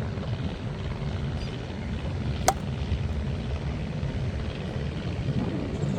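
Steady low rumble of wind on the microphone. About two and a half seconds in comes a single sharp crack, a plastic wiffle ball being struck.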